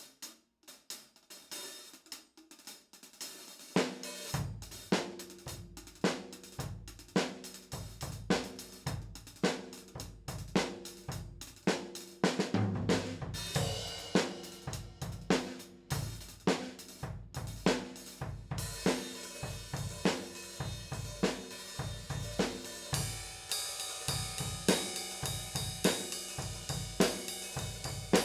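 A drum kit played with Paiste PST 3 cymbals. For about the first four seconds only the hi-hat keeps time. Then the bass drum and snare come in with a steady beat, and about two-thirds of the way through the cymbal sound grows denser and brighter.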